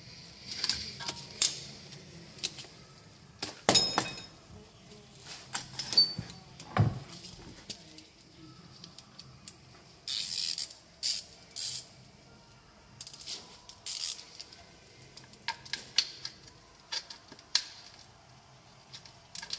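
Hand tools and small metal parts clicking, clinking and knocking during work at the crankshaft end of a TDI diesel engine, with a heavier knock about four seconds in, a dull thud about seven seconds in, and a few short rasping sounds around ten to twelve seconds in.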